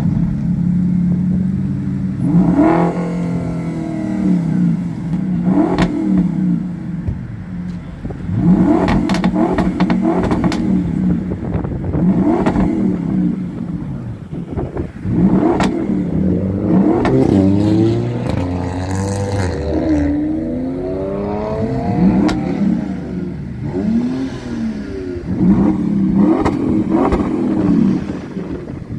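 Audi RS6 Avant's twin-turbo 4.0-litre V8 through an Akrapovič exhaust, stationary at idle and blipped in quick revs every few seconds. Many of the revs end in sharp crackles and pops as the revs drop.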